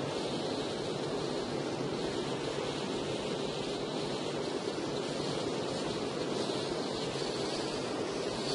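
Steady wind and rain noise of a car being driven in the rain: an even low rush with a higher hiss on top, without breaks.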